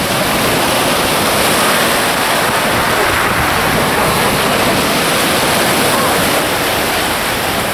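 Loud, steady rush of wind and open water on choppy sea.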